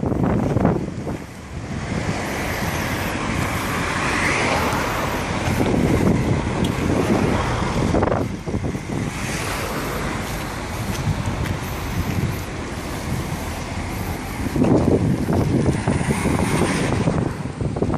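Road vehicles going by in a steady rumble, one of them louder near the end, with wind rumbling on the microphone.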